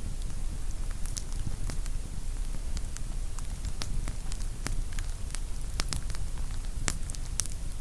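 Campfire of firewood burning, crackling with frequent irregular sharp pops of varying loudness over a low steady rumble.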